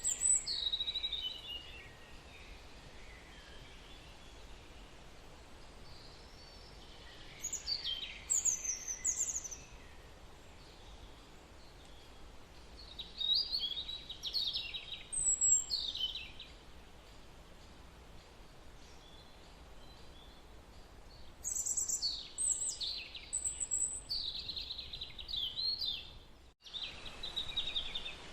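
Birds chirping in several bursts of quick, high, falling notes separated by pauses, over a steady background hiss. The sound cuts out for a moment near the end.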